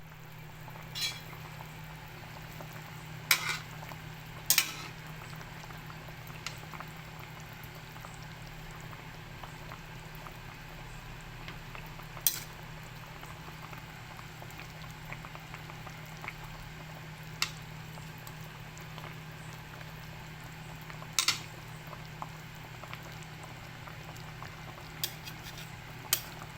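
Pan of fish sarsiado simmering, with a steady bubbling and a low hum underneath. A utensil clinks sharply against the pan about eight times.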